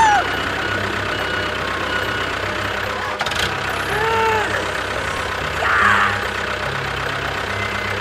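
A tractor engine chugging steadily. Short arching squeals sound right at the start and again about four seconds in, with a sharp click a little after three seconds.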